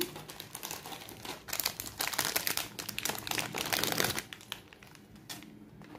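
Thin clear plastic packet crinkling and rustling as a pair of earrings on a card is handled and taken out of it, for about four seconds. Then it goes quieter, with a single soft click.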